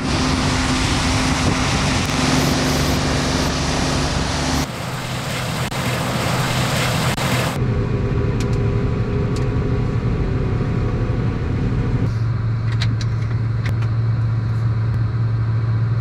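Farm harvest machinery engines running steadily during soybean harvest. The sound changes abruptly three times, at about 4.5, 7.5 and 12 seconds in, as one engine drone gives way to another, with a few light clicks near the end.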